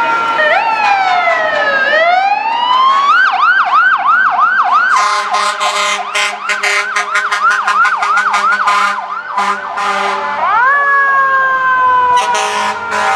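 Fire truck sirens: a wail glides down and back up, then switches to a fast yelp. Repeated short air-horn blasts sound over the yelp in the middle, and again near the end after another rising wail.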